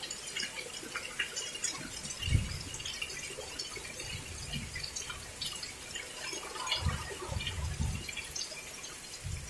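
Heavy rain dripping and splattering in many scattered drops over a steady hiss. Low rumbles of strong wind buffet the microphone about two seconds in and again for a second or so near the end.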